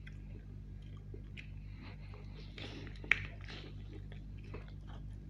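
Close-up chewing and biting of roast chicken, with wet mouth sounds and crackles, and one sharp crunch about three seconds in.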